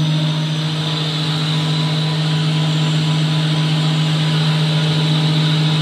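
HC-9700 soft-forming edge banding machine running steadily: a loud, constant low hum of its motors with a haze of cutter and feed noise, unchanging throughout.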